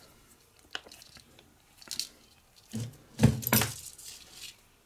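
Fishing line and a small metal swivel being handled as a figure-eight knot is pulled tight: a few faint ticks, then a louder burst of clicks and rubbing about three seconds in.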